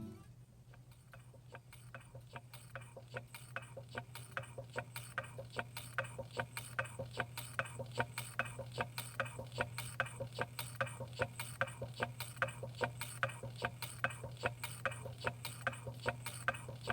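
Small Stirling engine running, its moving parts ticking at an even pace of about three to four clicks a second over a steady low hum. The clicks grow louder over the first few seconds, then hold steady.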